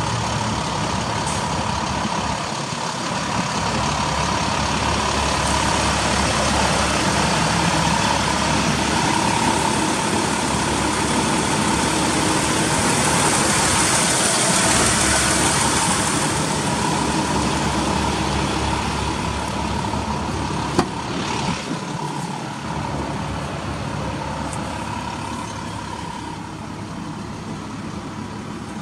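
2003 Ford F-150 XL pickup's engine idling steadily, under a constant hiss, with a single sharp click about two-thirds of the way through.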